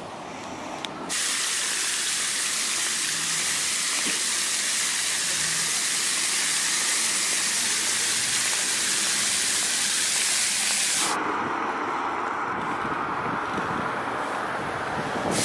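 Fountain jet splashing into its basin: a steady hiss of falling spray that starts suddenly about a second in. About ten seconds later it cuts to a lower, duller rushing noise.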